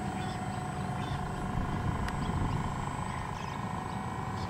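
Radio-controlled model boat's motor whining at one steady pitch, over a low rumble.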